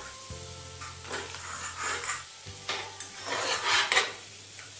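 Potato patties (aloo tikki) shallow-frying in oil in a nonstick pan, pushed and pressed with a fork: a few crackling, scraping sizzles, the loudest about four seconds in. The crisp crackle is the sign that the patties have fried crispy. Soft background music runs underneath.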